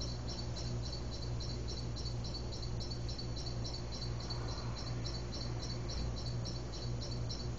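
Insects chirping in an even rhythm of about four pulses a second, over a low steady hum.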